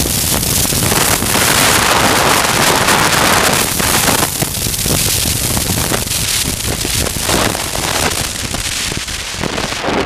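Wind rushing and buffeting over a motorcycle helmet camera's microphone while riding, a loud steady rush broken by crackling gusts.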